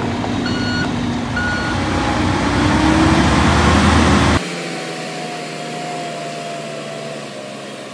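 Mack dump truck on the move: its backup alarm beeps twice, then its diesel engine climbs in pitch and grows louder. About four seconds in the sound changes abruptly to a quieter, thinner engine drone with the deep rumble gone.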